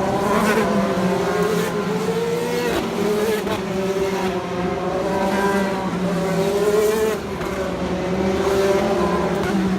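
IndyCars' 2.2-litre twin-turbo V6 engines running at race speed, several at once. Their notes rise and fall as the cars accelerate, brake and pass.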